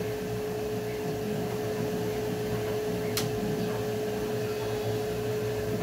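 Steady machine hum with a constant mid-pitched tone, and one sharp click about three seconds in.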